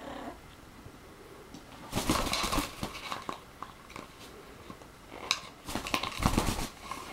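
A blue-fronted Amazon parrot attacking a plastic drink bottle: rough bursts of biting, scuffling and crackling plastic mixed with the parrot's growling, once about two seconds in and again from about five seconds, with wing flapping near the end.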